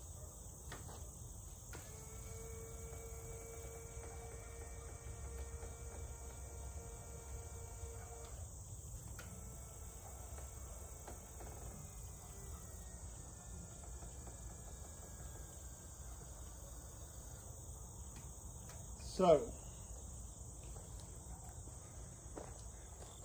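Newly installed electric linear actuator on a garden tractor's disc attachment, test-run: its motor whines steadily for about six seconds, stops, then runs again for about eight seconds with its pitch slowly falling. Crickets chirp steadily throughout.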